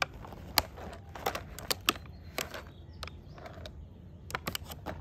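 Small plastic toy construction vehicles and their clear plastic blister packaging being handled: about a dozen light, sharp clicks and taps at irregular intervals, a quick cluster near the end, over a faint low background rumble.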